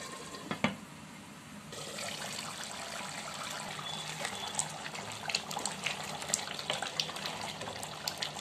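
Thick mutton curry gravy bubbling as it simmers in a pot, a steady hiss with many small pops. A single sharp knock about half a second in.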